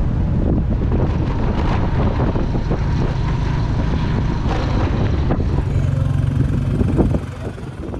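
Motorbike engine running on the move, with wind buffeting the microphone; the sound drops away sharply about seven seconds in.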